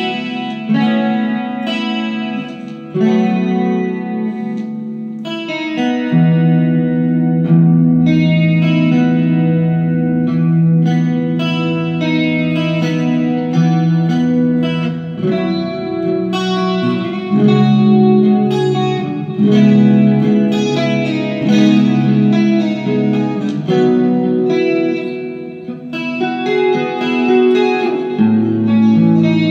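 Electric guitar with single-coil pickups played through a Vox VT20+ 20-watt hybrid tube-and-digital modelling amplifier: ringing chords and picked arpeggio notes, changing every second or so.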